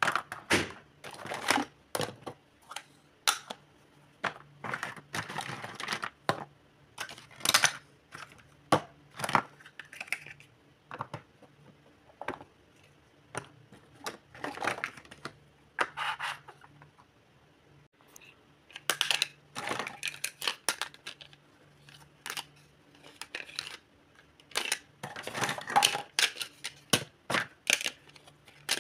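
Hard plastic toy kitchen pieces (pots, plates, utensils and toy fruit) clicking and clattering as they are picked up, knocked together and set down on a table. The clicks and knocks come in irregular clusters with a few short lulls.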